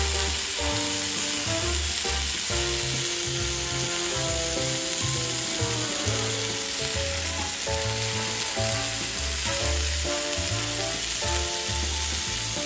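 Beef burger patties sizzling steadily as they fry on a hot nonstick griddle pan, with background music underneath.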